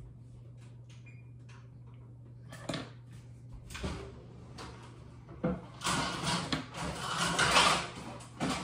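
Kitchen handling sounds: a few light knocks, then about two seconds of louder, noisy clatter, over a steady low hum.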